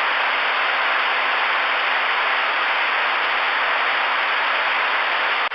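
Steady radio static hissing from a Stryker SR-447HPC 10-meter transceiver's speaker in a gap between received transmissions, with a faint low hum under it. It cuts off at the very end as a station comes back on.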